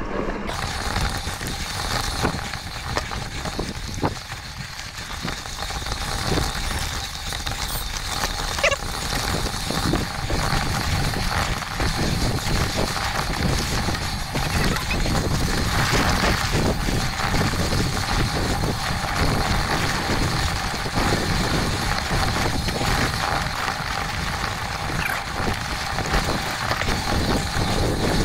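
Electric mountain bike climbing a rough, rocky track: tyres crunching over stones and the bike rattling, with many small knocks over a steady rumble and a faint steady whine.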